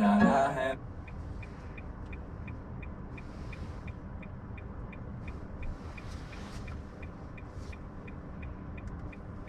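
Road noise inside a moving car, with a light, even ticking about three times a second. Music playing in the car cuts off shortly after the start.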